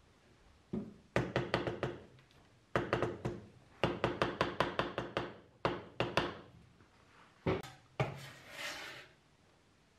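Runs of quick, sharp wooden knocks, several a second, as wooden kitchen tools strike a wooden cutting board. A short scrape comes near the end.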